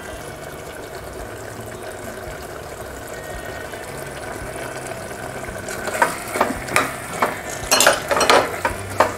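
Duck curry sizzling steadily in a pressure cooker pot on the stove. About six seconds in, a spoon starts stirring and knocking against the pot, a run of sharp clinks and scrapes.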